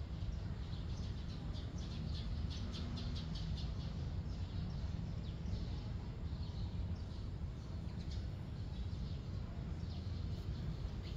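Small birds chirping in quick, repeated short notes over a steady low rumble.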